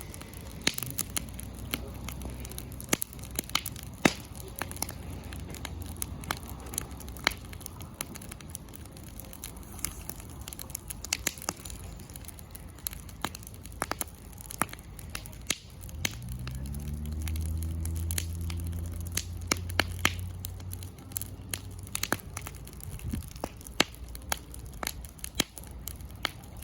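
Wood campfire crackling, with frequent sharp pops of burning wood. Partway through, a low droning hum rises in pitch and holds for several seconds.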